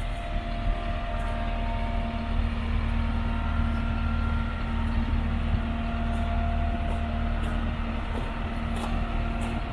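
2013 Cat 316EL excavator's diesel engine running steadily: a low hum with a steady droning tone and fainter whining tones above it.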